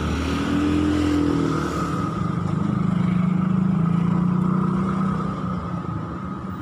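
A motorcycle engine runs close by, its pitch rising a little about a second in, then holding steady, growing louder in the middle and easing off toward the end.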